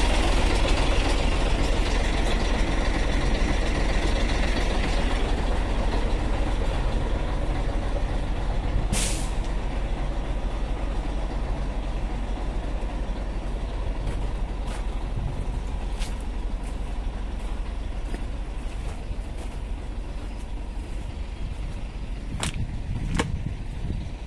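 Old Scania truck's diesel engine running as it pulls a long trailer at low speed, gradually getting quieter. A short sharp air-brake hiss comes about nine seconds in, and two more hisses come near the end.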